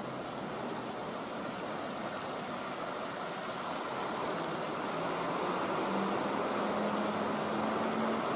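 Tobu 800 series electric train standing idle, its on-board equipment giving a steady hum and hiss that slowly grows louder, with a low steady tone coming in about two-thirds of the way through.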